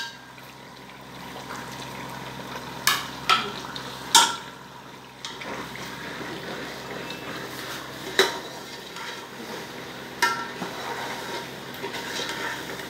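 Chicken qorma frying in masala in an aluminium pot, a steady sizzle, as a perforated steel spoon stirs it and clinks sharply against the pot about five times.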